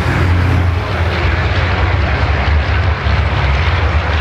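Diesel engine of a MAN racing truck running hard on the circuit, a loud, steady low drone with its exhaust.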